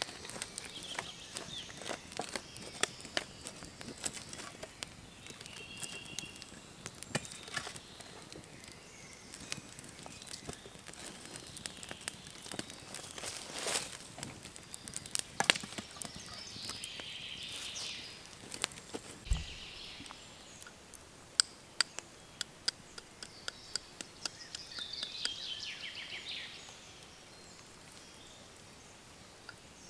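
Wood fire crackling, with scattered sharp pops and snaps from the burning logs and embers. Birds chirp now and then in the background.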